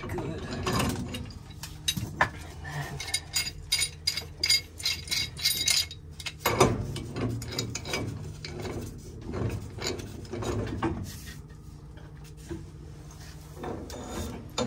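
Threaded black steel pipe fittings being turned in by hand tool: irregular metallic clicks and scraping as the tool is worked on the pipe and reset, over a steady low hum.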